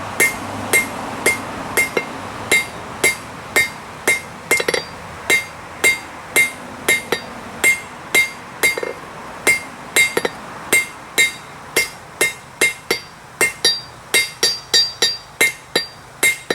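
Steady hand-hammer blows on hot steel over a Peter Wright anvil, about two a second, each strike ringing with a bright metallic ping as the bar is drawn out square. The blows come a little quicker near the end.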